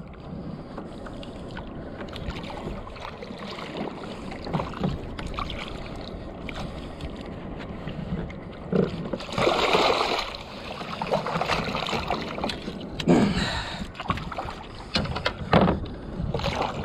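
Water sloshing and splashing around a fishing kayak, with scattered knocks. A louder rush of splashing comes just past the middle.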